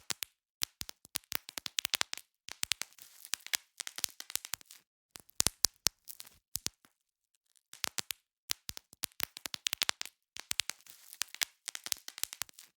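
Bubble wrap being popped: sharp little pops in quick irregular runs with crinkling of the plastic between them, broken by short pauses.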